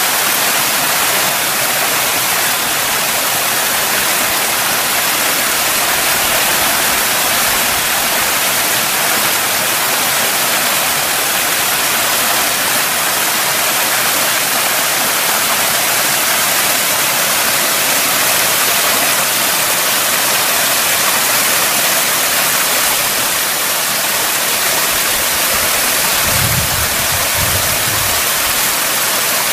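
Small mountain waterfall splashing steadily down granite rock into a pool, an even rushing hiss. A brief low rumble comes near the end.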